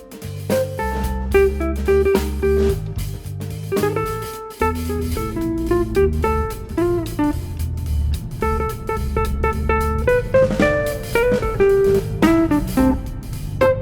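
Background music: plucked guitar over bass and a light drum beat.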